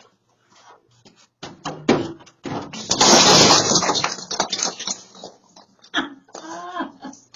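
Stepladder knocking several times as it is handled, then scraping loudly for about a second and a half as it is set down and opened, followed by a few more knocks.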